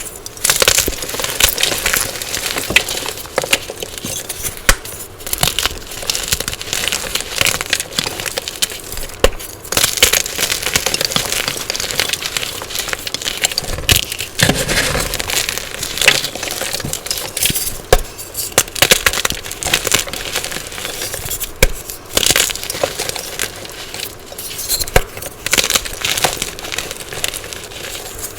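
Dyed gym chalk being crushed: a continuous crunching made up of many sharp crackles and snaps, with no real pauses.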